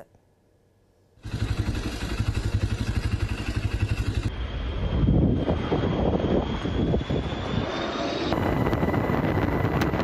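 Firefighting aircraft noise: a loud, rapidly pulsing engine and rotor rumble that starts about a second in after near silence. It comes in three separate cuts, joined about four and eight seconds in.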